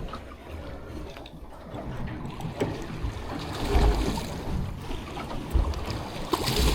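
Wind and water noise on the open deck of a fishing boat, with gusty low rumbling that swells about halfway through and again near the end, and a few light knocks.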